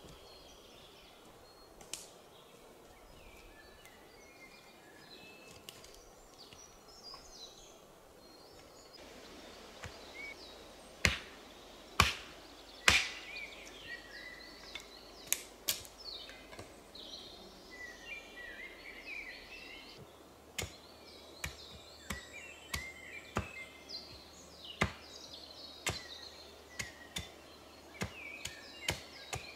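An axe chopping wood on a stump: three loud strikes a little after ten seconds in, a couple more soon after, then a run of lighter knocks about one a second as a knife splits small pieces of wood. Small birds chirp throughout.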